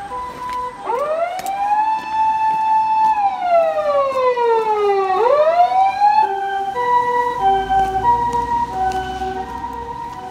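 Emergency vehicle sirens. A two-note hi-lo siren alternates, and about a second in a wailing siren joins it, rising, holding, sliding slowly down and rising again. From about six seconds in, alternating siren notes go on at several pitches over a low vehicle rumble.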